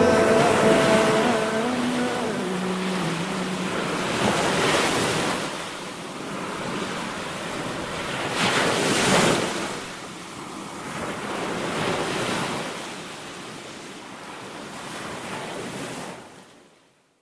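Ocean surf breaking on rocks and sand, swelling and ebbing in repeated surges with the loudest about nine seconds in, while music fades out in the first few seconds. The surf fades away near the end.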